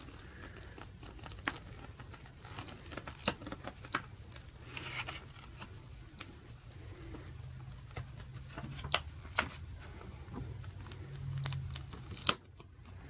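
A sticky label being scraped and peeled off a metal steelbook case by fingernail, heard as scattered sharp clicks and scratches, with a gummy adhesive residue left behind.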